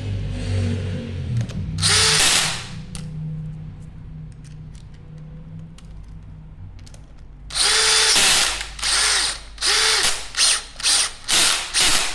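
Power drill-driver on its lowest setting driving Loctite-coated screws into an electric scooter's wheel: one run about two seconds in, then seven short bursts in quick succession near the end.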